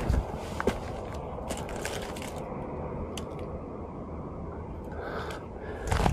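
Footsteps crunching on dry gravelly rubble and scattered old boards: several sharp steps in the first two seconds, then a steadier stretch with a low rumble, and a couple more steps near the end.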